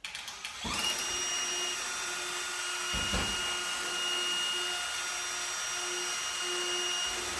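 A few ratchet clicks, then a cordless DeWalt drill on a ratchet drill press switches on under a second in and runs at steady medium speed with a high whine. Its quarter-inch bit is being fed up into half-inch steel overhead, with a brief knock about three seconds in.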